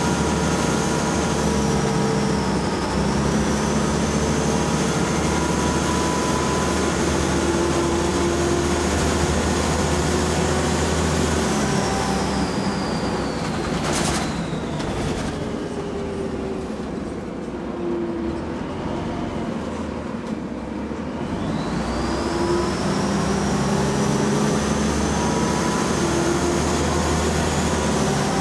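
Scania L94UB single-deck bus heard from inside the saloon while under way: the engine runs with a high whine from the driveline and its ZF automatic gearbox. About halfway through, the whine falls in pitch and the sound eases off, with a single knock, as the bus slows. It then climbs again as the bus accelerates away.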